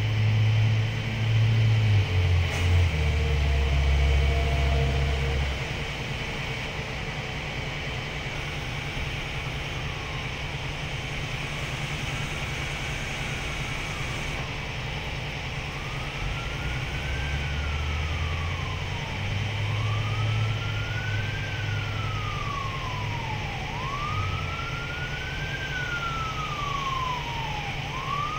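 A crane truck's engine runs steadily, its low note stepping up and down a few times as the boom works, loudest in the first five seconds. From about nine seconds in, a siren's rising-and-falling wail grows steadily louder, about one cycle every four seconds.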